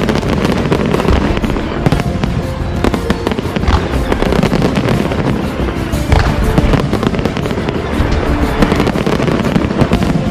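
Fireworks going off in a dense, continuous run of crackling and bangs, with music playing underneath.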